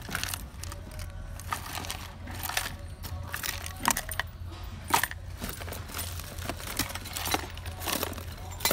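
Hooks, swivels and metal lures rattling and clinking in a plastic tackle box as a gloved hand rummages through it: irregular small clicks and jingles, with a few sharper clinks about four and five seconds in and near the end, over a steady low hum.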